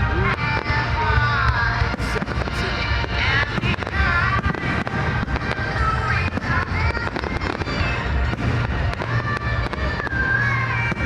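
Fireworks going off in a rapid run of sharp cracks and bangs all through, over loud music with a strong bass.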